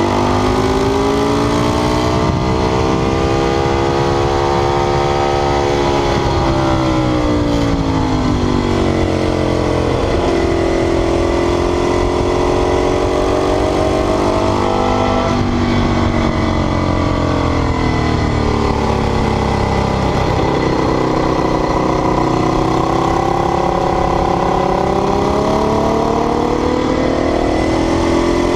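Ducati 848's L-twin engine running hard, its pitch rising and falling several times as it revs up and comes off, with a sudden drop in pitch about halfway through.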